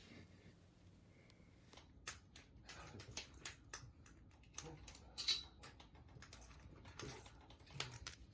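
A run of light, irregular clicks and taps, several a second, starting about two seconds in over a faint quiet background.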